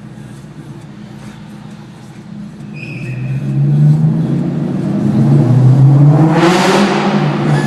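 Cobra's V8 through an X-pipe exhaust, idling, then revved hard from about three seconds in, its pitch rising and falling with the throttle and loudest about six seconds in.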